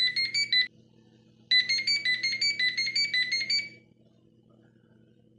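Home cordless phone playing an electronic ringtone of quick beeping notes that alternate between two pitches. A short snatch of it plays first, then after a brief gap a longer run of notes that stops a little before four seconds in.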